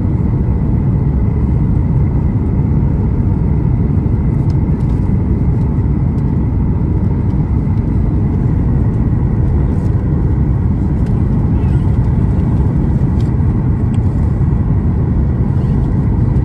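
Steady cabin noise of a Boeing 737-8 MAX on final approach, heard from a seat over the wing: a deep, even rumble of airflow and the CFM LEAP-1B turbofans, with a faint steady high whine running through it.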